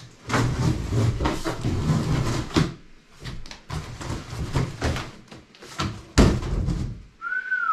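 Large cardboard box scraping and rustling as it is worked up and lifted off a packed machine, with a few light knocks, then the empty box tossed aside and landing with a sharp thump about six seconds in, the loudest sound here. Near the end a cat meows once with a short falling call.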